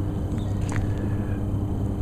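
Steady low mechanical hum with a faint ringing tone over it, and a couple of faint ticks.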